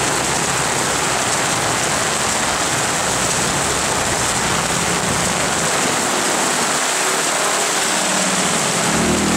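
Heavy rain falling steadily, a continuous loud hiss. Near the end a vehicle engine's low hum comes in under it.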